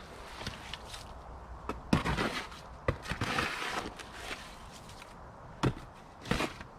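A few sharp knocks, the loudest about two seconds in, with scraping and rustling between them.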